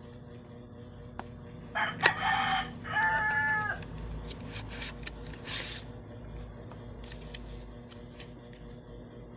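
A bird's loud call, about two seconds long, that ends on a held note, over a steady low hum. A few scattered clicks follow.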